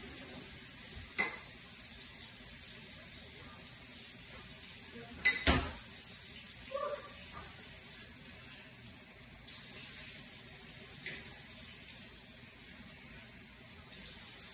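Kitchen sounds: a few clinks and knocks of dishes over a steady hiss, with the loudest knock, a double one, about five and a half seconds in.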